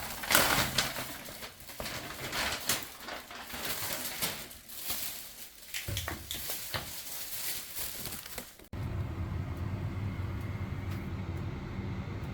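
Rustling and clicking handling noises. About nine seconds in, these cut off abruptly and give way to the steady low hum of a gas furnace running.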